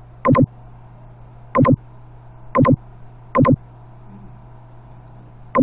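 Computer mouse buttons clicking close to the microphone, in five quick clusters of two or three clicks each, over a steady low electrical hum.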